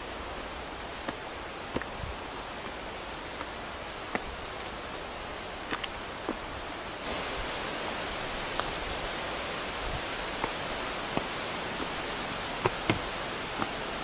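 Steady rush of flowing water, with scattered clicks of footsteps on the rocky trail. The rush jumps suddenly louder about halfway through.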